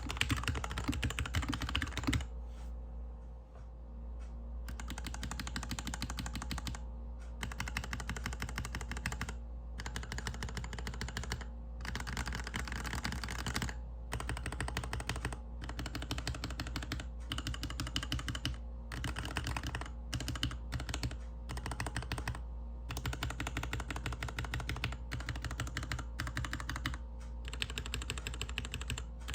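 Typing on a GK61X mechanical keyboard with Cherry MX Hyperglide Black linear switches, DSA keycaps and a stainless steel plate in a plastic case. Fast continuous typing on a desk mat stops about two seconds in. After a short pause, bursts of keystrokes on the modifier and letter keys follow directly on the desk, with brief gaps between them.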